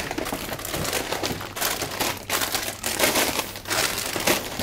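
Plastic snack wrappers crinkling and rustling in rapid bursts as packets are grabbed by the handful and put into a shopping basket.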